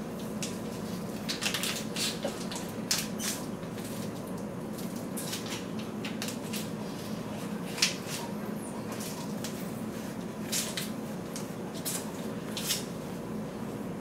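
Freezie pop being sucked and handled in its plastic sleeve: scattered short crinkles, clicks and sucking sounds over a steady room hum.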